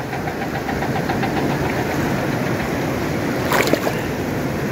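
Steady rushing of a fast-flowing river's water, with a short, louder sound about three and a half seconds in.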